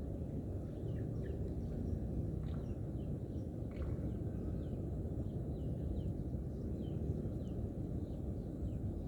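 Outdoor ambience of a steady low rumble, with many short, high chirps from birds, each falling in pitch, about two a second.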